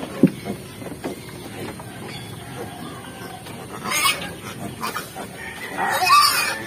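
Bucket knocked and shaken upside down to empty out pig feed: one sharp knock just after the start, then lighter scattered taps and rustles. Near the end, loud high pitched calls from farm animals.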